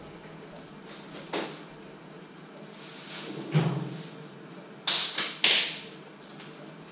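A single knock, then a dull thud, then three sharp clacks in quick succession, the loudest of the lot: household knocks and clatter in a small room.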